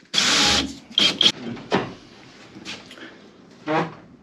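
A sheet of drywall scraping and knocking as it is pushed into place against the framing: a brief scrape at the start, then a few sharp knocks.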